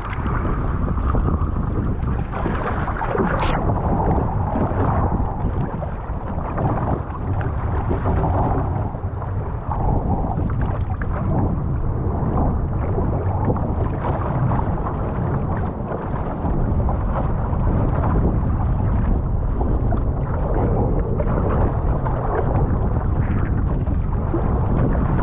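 Wind buffeting the microphone of a camera mounted on an outrigger canoe, over the rushing and sloshing of sea water along the hull, with one short sharp sound about three and a half seconds in.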